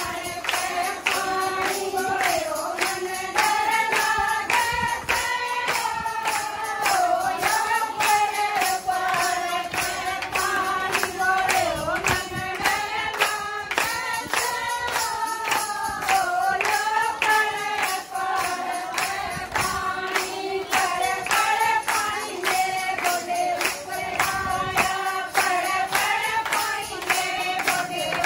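A group of women singing a Hindi devotional bhajan to Shiva in unison, over a steady beat of hand clapping.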